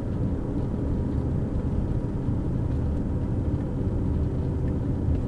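Steady, mostly low-pitched road and engine noise of a car being driven, heard from inside the car.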